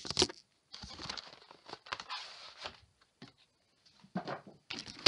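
A cardboard sleeve being slid off a model train box: irregular scraping and rubbing of card with knocks from handling the box, the loudest a sharp knock at the end.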